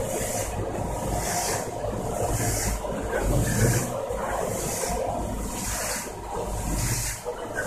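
Snack-processing machinery running: an inclined flighted conveyor and a rotating drum handling fried slanty nimko. It gives a steady motor hum with a hissing swish that swells about once a second.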